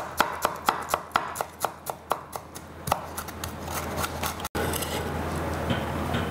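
Knife chopping shallot on a wooden cutting board: quick even strokes, about four a second, that stop about three seconds in. Afterwards a steady low hum with a couple of faint taps.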